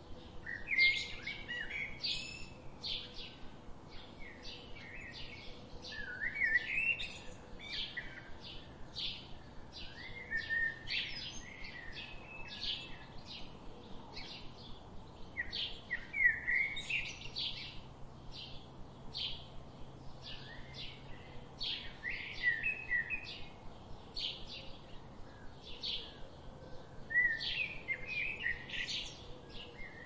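Songbirds singing: a steady run of short, high chirps about twice a second, with a longer warbled song phrase recurring every five or six seconds.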